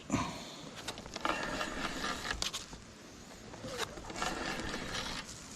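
Spinning fishing reel being cranked in three short spells of whirring, reeling in a hooked bass.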